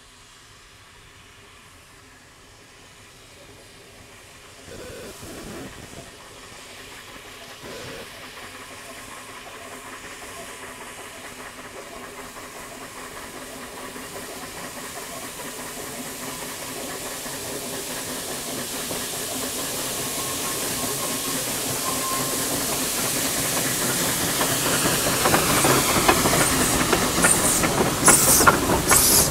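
Garratt steam locomotive No. 87 approaching with its train, steam hissing, growing steadily louder until it draws level near the end with a run of sharp clicks.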